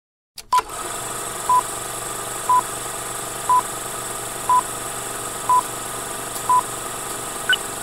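Film-leader countdown sound effect: a short mid-pitched beep once a second, seven times, over a steady hiss and hum of old film. Near the end comes one higher, shorter blip.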